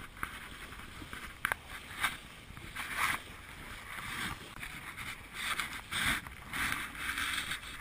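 Water splashing and rushing along the hull of a wooden GP14 sailing dinghy moving through choppy water, in irregular bursts.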